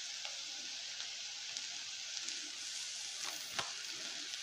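Shredded cabbage sizzling in oil in an aluminium kadai, a steady frying hiss, with a couple of light clicks from the steel spoon stirring it near the end.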